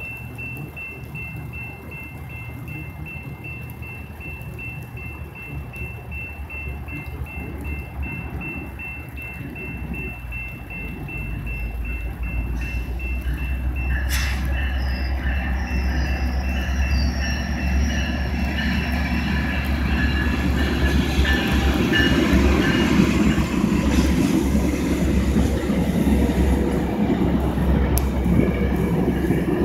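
Northstar commuter train approaching and passing, with its MP36PH-3C diesel locomotive and bilevel coaches on the rails. A low rumble builds from about twelve seconds in and grows into the loud, steady run of the train going by near the end.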